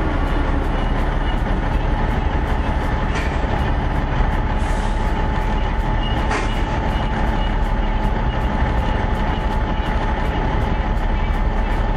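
1972 Brockway 361 truck's engine running steadily at low speed, a constant low rumble.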